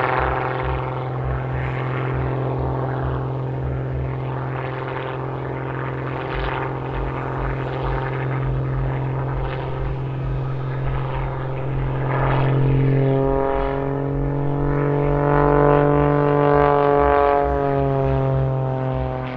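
MXS aerobatic plane's Lycoming AEIO-540 six-cylinder boxer engine and propeller running loud and steady in flight. From about two-thirds of the way through, the pitch swells and sways as the plane manoeuvres. The sound cuts off at the end.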